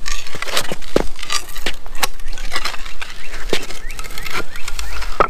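A trenching spade working in lawn soil and sod: a run of crunching, cracking knocks and scrapes at an irregular pace.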